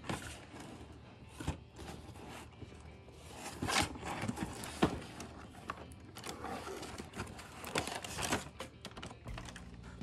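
A cardboard toy box being handled and turned over in the hands: irregular rubs and scrapes of fingers sliding on cardboard, a few of them louder, over soft background music.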